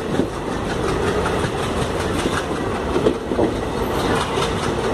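Passenger train coach running along a station platform, heard from the open doorway: steady wheel-and-rail rumble with irregular clicks and clacks from the wheels over the track.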